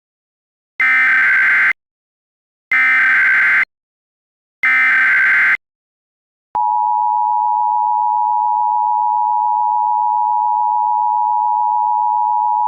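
Emergency Alert System SAME header: three bursts of data tones, about a second each. Then, about six and a half seconds in, the steady two-tone EAS attention signal starts and holds. Together they open a required monthly EAS test alert.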